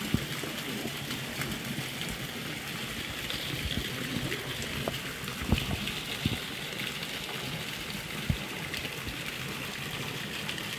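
Steady splashing, running water, with a few dull knocks, the strongest about halfway through.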